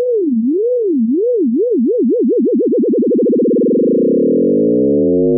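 Synthesized sine tone with its frequency modulated: the pitch swings up and down, slowly at first, with the swings speeding up steadily. Past halfway the wobble fuses into one steady tone of new, richer timbre, which is the way FM synthesis creates a new sound from a single sine wave.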